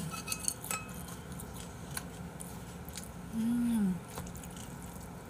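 Scattered small clicks of eating utensils against dishes during a meal, with a short hummed 'mmm' that rises and falls about three and a half seconds in, the loudest sound.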